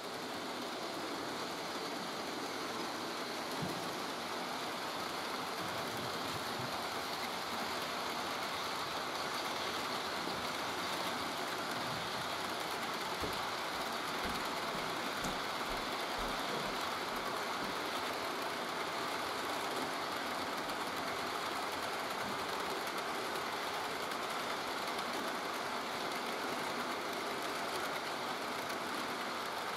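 HO-scale model freight train of covered hopper cars rolling steadily along the track: an even, fairly quiet whir of wheels and running gear on the rails, with a few faint clicks.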